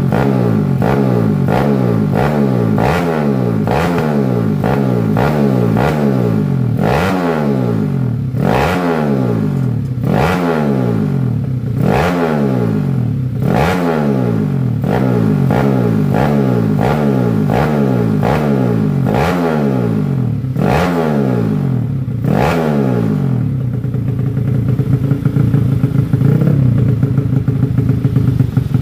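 Jupiter 200cc single-cylinder four-stroke motorcycle engine revved in quick throttle blips, each a sudden jump in revs that slides back down, with several bigger revs along the way. It settles into a steady idle near the end. The engine is being test-run on a freshly set CDI ignition advance curve.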